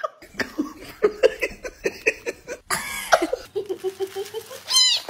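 Laugh-like voice in quick repeated bursts, a few per second, with a noisy gasp or cough about two and a half seconds in and a brief shrill call just before the end.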